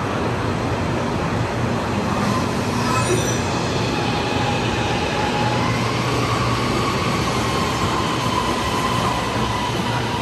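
Ampang line LRT train pulling out of the station and running past: steady running noise of wheels on rail, with an electric motor whine that rises in pitch about five seconds in and then eases off. A brief high wheel squeal comes about three seconds in.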